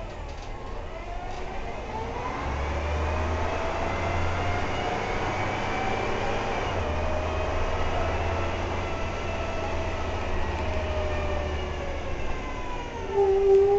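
Inside a SICCAR 177 city bus under way: engine rumble with a whine that rises slowly in pitch as the bus gathers speed, then falls as it slows. Near the end a loud steady tone starts suddenly.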